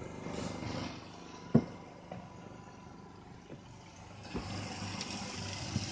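A single sharp knock about one and a half seconds in, then a few fainter taps, over a low steady hum and hiss.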